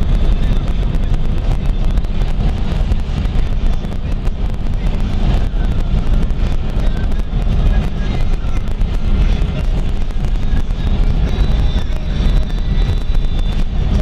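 Car driving at highway speed: steady low road and engine noise, with wind buffeting the microphone.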